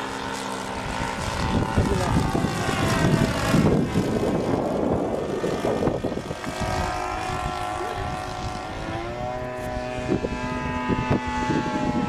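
Radio-control Seagull Edge 540 model plane's 26cc petrol engine and propeller running in flight, the engine note shifting in pitch as the plane manoeuvres. A stretch of rushing noise covers it between about two and six seconds in.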